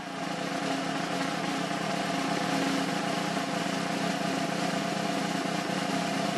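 Steady arena ambience: an even hum and wash of crowd noise in a large hockey rink, with no single sound standing out.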